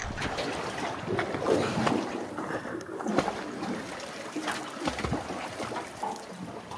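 Small waves lapping and splashing irregularly against the hull of a Bar Crusher aluminium plate boat.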